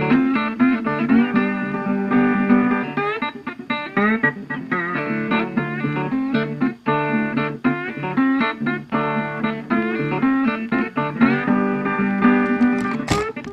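Background music: a guitar playing plucked notes, some bending in pitch.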